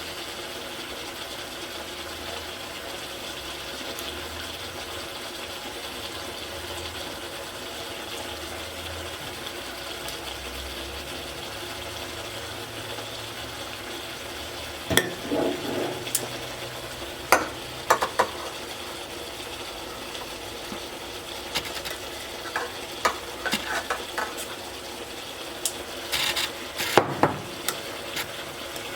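Food frying in a pan with a steady sizzle. About halfway through, a utensil starts stirring, with scattered scrapes and knocks against the pot.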